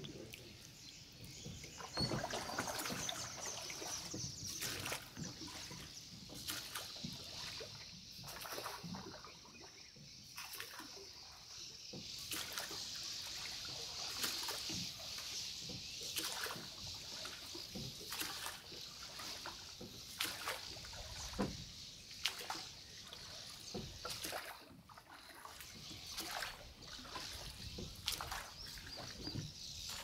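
Water splashing and sloshing around a small boat moving on a river, in irregular strokes over a steady high hiss.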